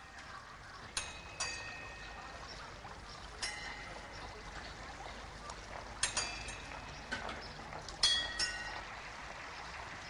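Water pouring and trickling through a water clock whose figures tip watering cans. Several sharp metallic clinks ring on briefly, at irregular moments.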